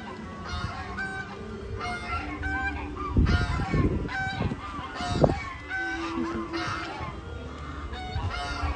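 Domestic geese honking again and again, short nasal calls coming about once or twice a second.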